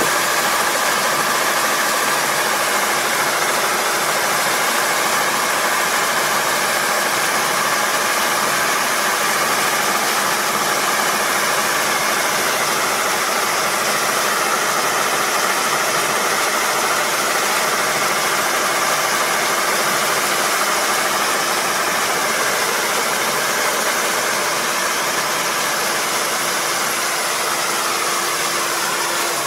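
Combine harvester engine running steadily at working speed, a constant drone with a few steady tones over a noisy whir.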